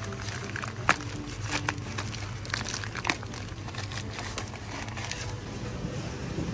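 Plastic shrink-wrap on packs of flour crinkling and crackling in irregular bursts as the packs are grabbed and handled on a shop shelf, over a steady low hum.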